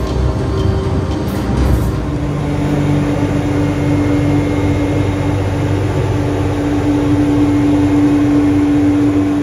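Hydraulic machinery of a 1964 Gebauer lift running, a steady mechanical hum with oil rushing and foaming into the tank. A steady tone comes in about two and a half seconds in and holds.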